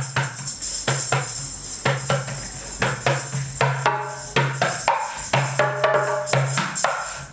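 Instrumental passage of a live reggae song with no singing: hand percussion striking a steady beat over a repeating low bass note, with held chord tones joining from about four seconds in.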